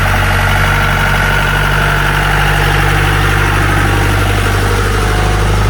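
Jeep engine running with a steady low drone.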